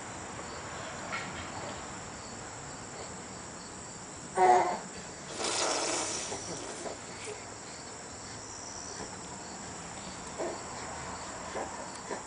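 Steady high-pitched insect chirring in the background. About four seconds in comes a brief vocal sound from a small child, then a short noise as the toddler bites into a tomato.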